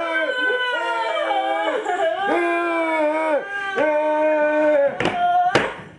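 A high voice singing a wordless melody in long held notes with slides between them, breaking off about five seconds in, followed by a few sharp knocks.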